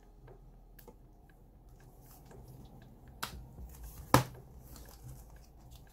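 Clear plastic cash-envelope binders being handled: light taps and clicks as a binder is picked up from the row and set down on the table, with two sharper clicks about three and four seconds in.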